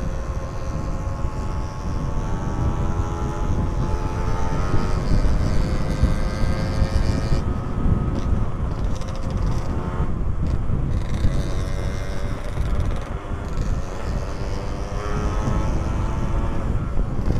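Two-stroke motorcycle engine running on the move, its pitch rising and falling as it revs through the gears, over a heavy low wind rumble on the helmet microphone.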